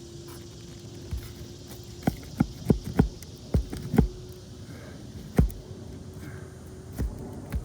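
Sharp clicks and knocks of a pry tool working roofing nails loose from under asphalt composition shingles, most of them quick-fire in the middle, then a couple more spaced out. The brittle shingles crack and shed granules as the nails are worked out. A faint steady hum runs underneath.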